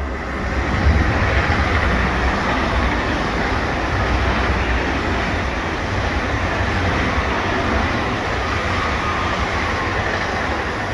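ICE high-speed electric train passing close along the platform track. Its wheels and running gear make a steady rush and low rumble, which builds as the front arrives in the first second and then holds loud as the carriages go by.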